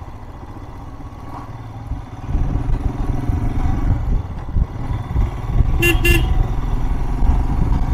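Royal Enfield Himalayan's single-cylinder engine running under the rider on a climbing road, louder from about two seconds in, with two quick horn toots about six seconds in.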